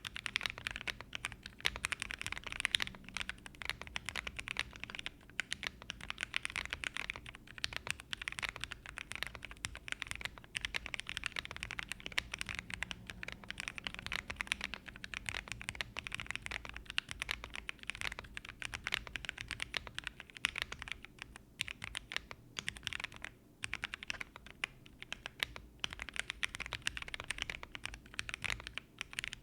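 Continuous typing on an M.One Ginkgo 65 mechanical keyboard with lubed Gateron Box Black Ink linear switches, PBT keycaps and a polycarbonate plate. It is a rapid, steady stream of keystroke clacks with a few short pauses.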